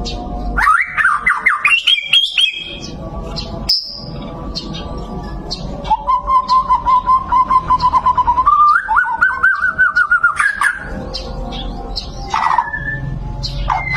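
White-rumped shama (murai batu) singing: quick rising whistled phrases, then a long rapid trill that steps up in pitch partway through, followed by a few short calls.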